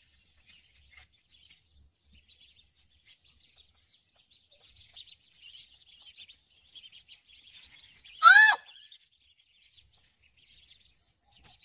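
Ducklings peeping: many faint, high, quick chirps. About eight seconds in there is one loud, short cry.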